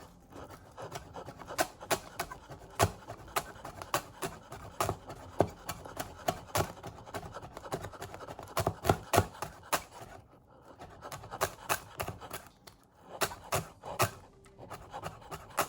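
Knife chopping chives on a cutting board: sharp, irregular chops about twice a second, with a brief pause about ten seconds in.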